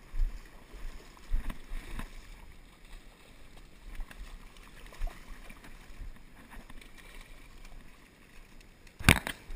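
Water splashing as a hooked pink salmon thrashes at the surface in the shallow river edge, over a steady wash of moving river water, with scattered small knocks. A cluster of loud, sharp knocks comes near the end.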